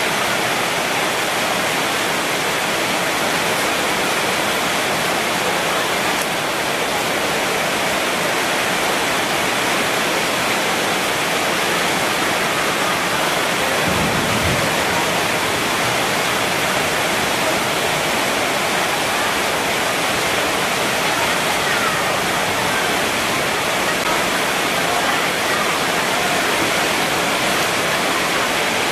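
A steady, even rushing hiss that does not change, with a brief low bump about halfway through.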